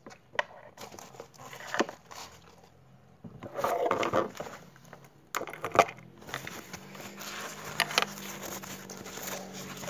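Rummaging through a backpack close to a phone's microphone: scattered rustles, scrapes and clicks of handled items, with a louder rustle about four seconds in and a sharp click a little after five seconds.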